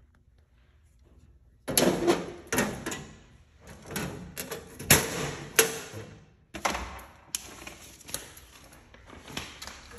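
Irregular sharp knocks and clatter, about one or two a second, starting suddenly about two seconds in after a near-silent moment.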